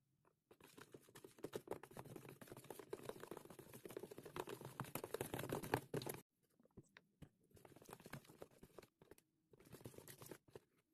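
Slime being pressed and worked by hand close to the microphone, making a dense run of small crackling clicks for about six seconds, then softer, sparser clicking near the end.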